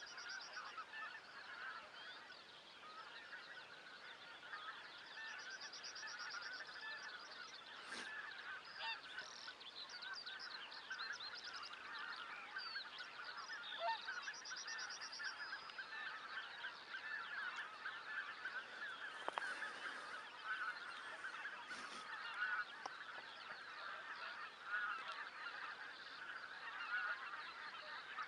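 Dense, continuous chorus of honking calls from a large flock of wild geese and swans gathered on a feeding field.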